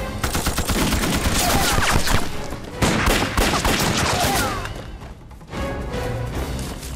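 Sustained rapid gunfire, many shots in quick succession, dropping off briefly about five seconds in before starting up again.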